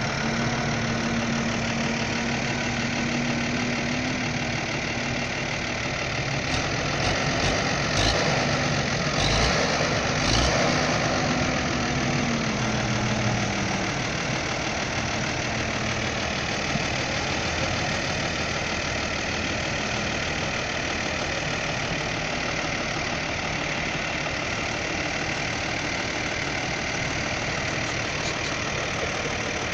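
Farm tractor's diesel engine running steadily close by as the tractor moves off pulling a loaded bale trailer; the engine note rises slightly about four seconds in and falls back around thirteen seconds in, with a few clanks about eight to ten seconds in.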